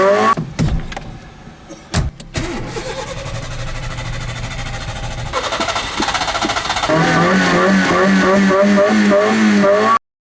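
Nissan Micra K11 engine being cranked on its starter motor, turning over in an even rhythmic chug without catching. The cranking stops just after the start, followed by a few sharp knocks and a quieter stretch with a low steady hum, then cranking resumes for the last few seconds and cuts off suddenly.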